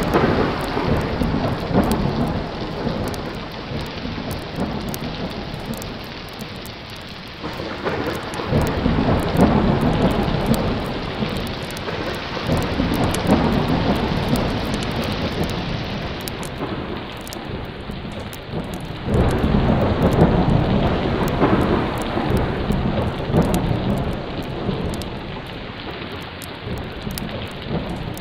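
Thunderstorm: steady heavy rain with rolling thunder. A rumble dies away at the start, another builds about eight seconds in, and a third breaks suddenly about nineteen seconds in before fading.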